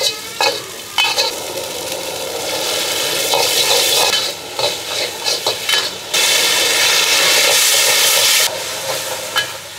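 Flat rice noodles (kuey teow) stir-fried in a hot black steel wok: a metal spatula scrapes and clanks against the wok over a steady sizzle. The sizzle swells louder for about two seconds past the middle, then eases back.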